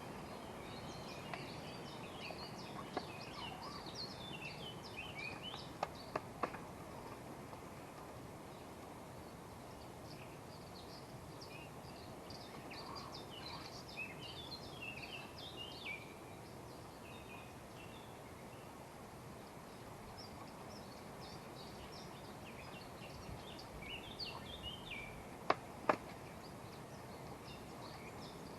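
Small birds chirping and twittering outdoors in several flurries of short high notes over a steady background hiss. A few sharp knocks come about six seconds in, and a close pair near the end.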